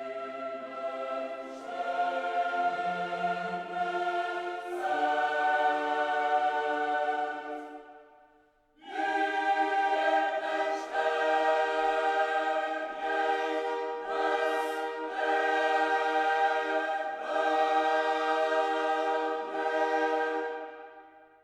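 Background music of slow, held, choir-like chords. It fades out about eight seconds in, starts again a second later, and fades out near the end.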